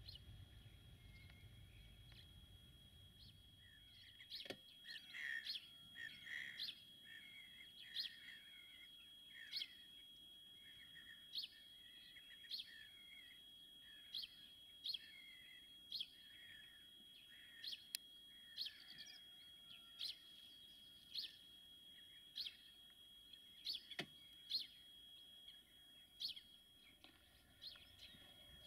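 Small birds chirping: one repeats a short high chirp about once a second, with more birds twittering between about four and ten seconds in. A faint steady high tone runs underneath.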